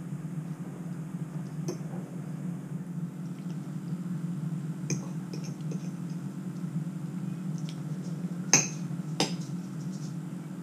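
A few light clinks of a utensil against a dish or glass, the loudest two close together near the end, over a steady low hum.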